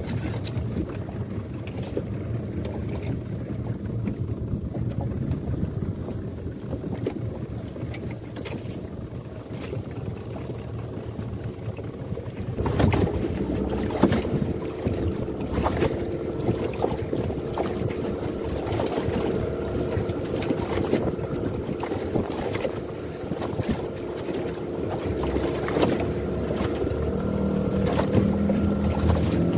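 Yamaha 15 hp outboard motor running as the boat trolls through choppy water, with wind buffeting the microphone and a few sharp knocks about halfway through. The engine's steady hum comes through more clearly from about halfway, and grows stronger near the end.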